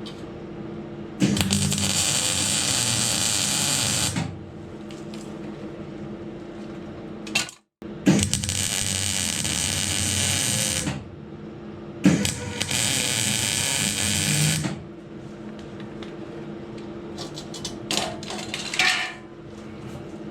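Welder arcing in three bursts of about three seconds each, crackling and buzzing as sections are welded onto sheet-metal rust-repair panels. A steady machine hum runs underneath.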